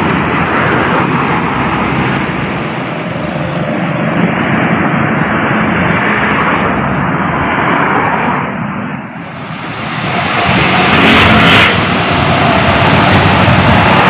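Large coach buses driving past, their diesel engines running over tyre and road noise. The sound dips about nine seconds in, then swells as another coach comes close, with a short hiss about eleven seconds in.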